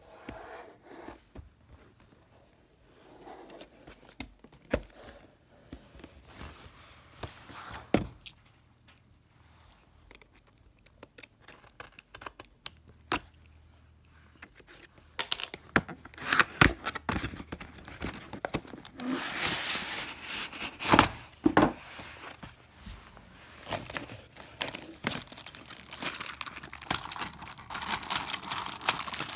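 Packaging of a toy train set being handled and opened: a few isolated knocks and clicks, then from about halfway a run of tearing and crinkling of wrapping, with a few louder rips.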